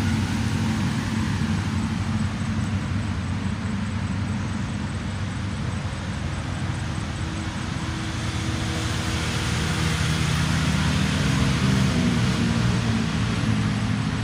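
A motor vehicle's engine running steadily as a low hum, getting louder from about nine seconds in.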